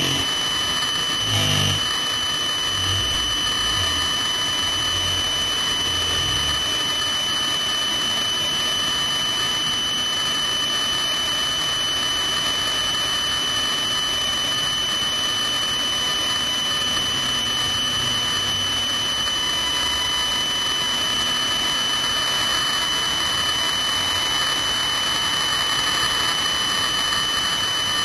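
Military helicopter on the ground with its turbine engines running: a steady high-pitched whine over a constant rush of engine noise.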